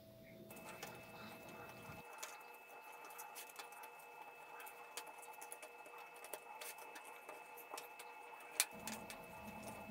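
Rolled newspaper tubes crinkling and clicking as they are twined over and under paper spokes, in many small irregular taps and rustles.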